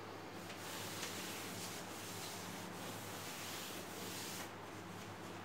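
A blackboard duster rubbed back and forth over a chalkboard, wiping off chalk writing: a steady scratchy scrubbing that eases off about four and a half seconds in.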